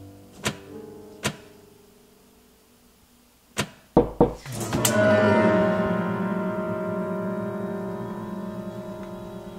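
A few sharp clicks, then a deep low hit and a loud, dense horror-score chord that swells about five seconds in and slowly fades.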